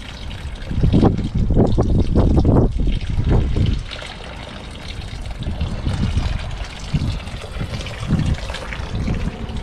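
Grey water trickling from a motorhome's grey-water tank drain onto gravel, over the steady noise of the Truma heater's ventilation fan. A heavier low rumble runs for a few seconds near the start.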